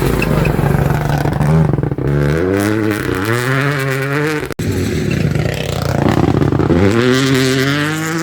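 Rally cars accelerating hard on a stage, the engine pitch climbing and dropping back again and again through the gear changes. The sound breaks off suddenly about four and a half seconds in, then another car's revs climb the same way.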